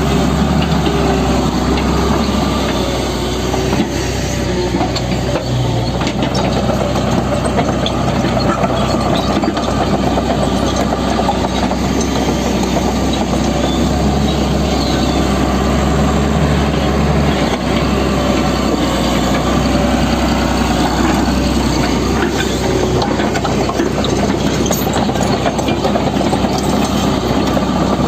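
Heavy road construction machinery with its engine running steadily at a constant speed.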